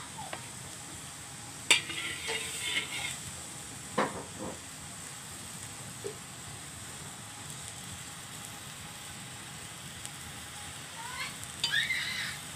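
Gas stove burner hissing steadily under an empty wok as it heats, with a few sharp knocks and clatters, the loudest about two seconds in and about four seconds in, and another short cluster near the end.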